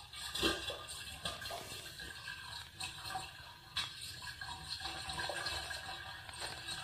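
Water splashing and sloshing in the sewer pipe beneath a bathroom floor drain, heard up through the drain grate, with an irregular wash and a few sharp knocks. The uploader takes it for movement underground.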